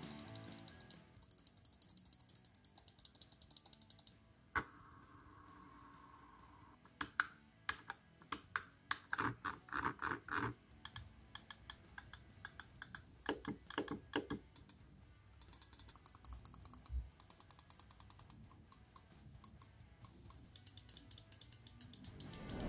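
Logitech G502 Hero gaming mouse buttons being clicked, mostly as single sharp clicks pressed one after another. There are also stretches of rapid ticking from its notched scroll wheel being rolled, near the start and again in the second half.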